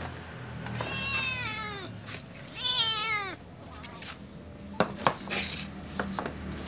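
Young cats meowing to ask for food: two drawn-out meows that fall in pitch, the second louder and higher. A few sharp clicks follow near the end.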